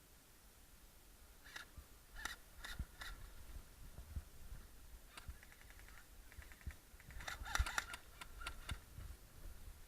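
Faint airsoft gunfire: scattered single sharp cracks, a short rapid run of evenly spaced shots in the middle, and a denser cluster of shots about three-quarters of the way in.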